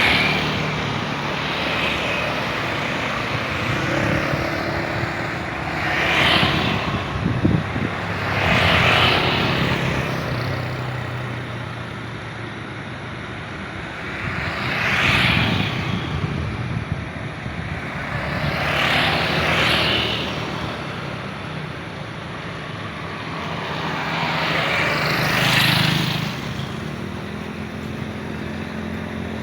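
Aircraft noise at a busy airport: a steady engine rumble with low tones underneath, swelling and fading about six times, every few seconds.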